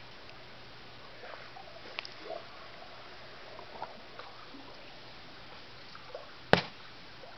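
Small sloshes and drips of water in a shallow tidal pool, with one sharp click about six and a half seconds in.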